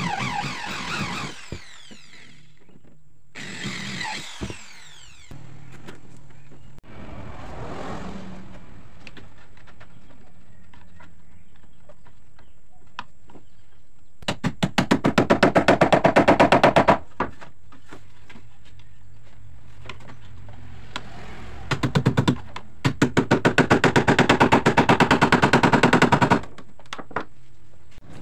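Power tool rattling with rapid, regular strikes in two bursts of a few seconds each, about halfway through and again near the end. In the first few seconds, two shorter whirring sounds fall in pitch as they wind down.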